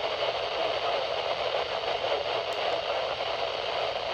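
Steady radio static and hiss from a weather radio receiver, a constant noisy rush with no clear voice.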